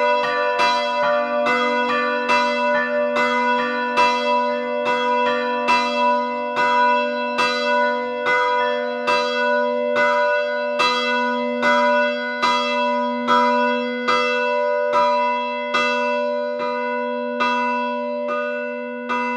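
Two church bells, a 79 cm bell tuned to B cast by Feniks Žalec in 2004 and a 61 cm bell tuned to D cast by Luigi Magni in 1929, are swinging together. Their clappers strike in an even alternating rhythm of about three strikes every two seconds, and each strike is loud over the bells' sustained hum.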